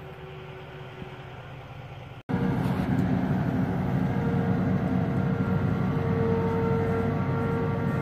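Faint low hum for about two seconds, then the Massey Ferguson 860 combine's diesel engine running steadily and loudly as it drives slowly across the yard.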